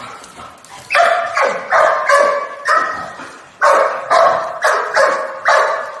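A dog barking loudly in two quick runs of about five barks each, starting about a second in: excited barking as the dogs greet their owner after a long separation.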